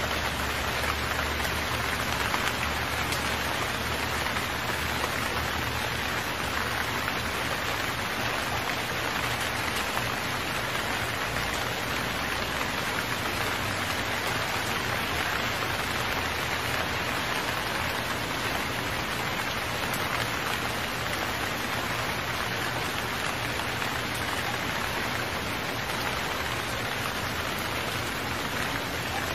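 Steady, heavy rainfall sound effect, an even hiss of rain that starts abruptly and keeps a constant level.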